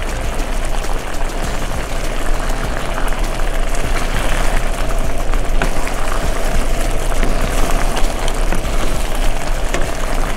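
Pot of bow-tie pasta in a thick pumpkin sauce boiling hard over high heat: a steady bubbling hiss with many small pops, as the sauce reduces and thickens around the cooking pasta.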